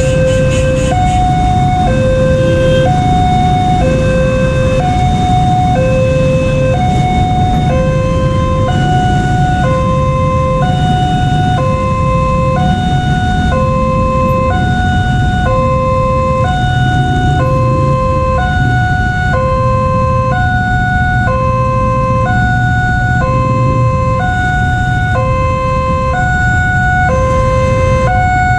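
Two railway level-crossing alarms sounding together from horn loudspeakers. Each repeats a two-note chime, switching between a high and a low note about once a second, one pitched lower and one higher. The higher alarm grows louder about eight seconds in, over a low rumble of road traffic.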